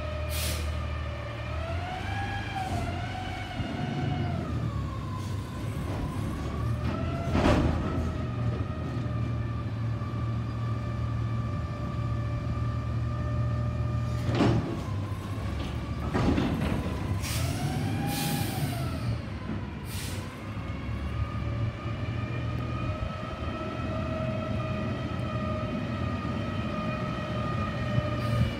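Waste Management front-load garbage truck with a Curotto-Can arm at work: the natural-gas engine's rumble under a whine that rises and falls in pitch a few times as the hydraulics lift the can over the cab and dump it. Several sharp metal bangs come at intervals.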